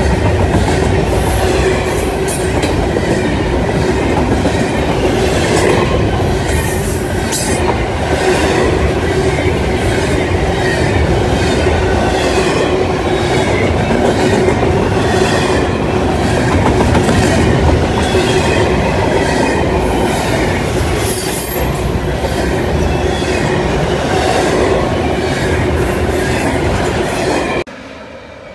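Double-stack container well cars rolling past with a steady rumble of wheels on rail and a run of clicks, and a thin high wheel squeal partway through. Near the end the sound drops suddenly to a much quieter, distant rumble.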